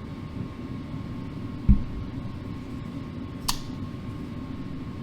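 Steady low fan-like hum, with one dull thump about a third of the way in and a single sharp metallic click with a short ring later, from handling a folding knife while its pivot screw is being adjusted.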